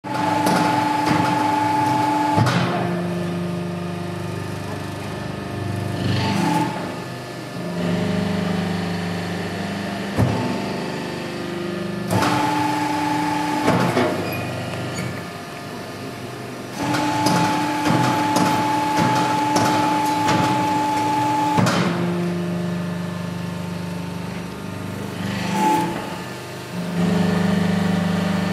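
Hydraulic charcoal briquette press cycling: the hydraulic power unit's steady hum changes pitch every few seconds as the punches press down and lift. A sharp clunk comes at each change.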